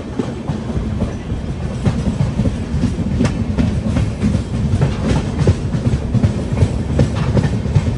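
Passenger train running, its coach wheels clattering over the rails with a steady low rumble and many sharp clicks, heard from the open coach doorway.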